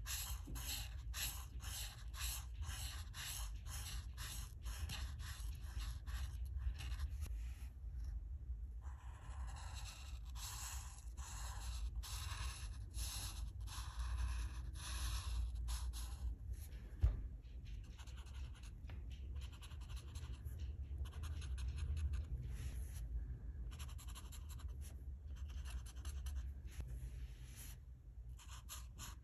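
Alcohol marker nib scratching across paper in quick, evenly repeated colouring strokes, several a second, with a few short pauses. A single sharp tap about two-thirds of the way through.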